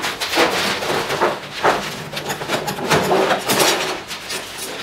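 Thin steel sheet being cut with long-handled hand shears and moved about, giving irregular crunching snips, clicks and metallic clanks and rattles from the sheet.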